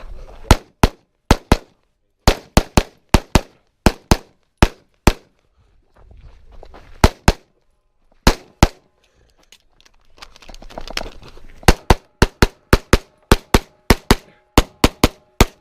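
Pistol shots fired rapidly, mostly in quick pairs, with two short pauses between strings while the shooter moves to new positions during a practical shooting stage.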